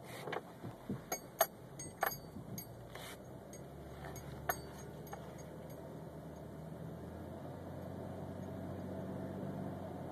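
A few sharp clicks and a key jingle in the first seconds, then the 2002 Chrysler Voyager's 3.3-litre V6 running steadily, heard from inside the cabin, its hum rising slightly in the last few seconds.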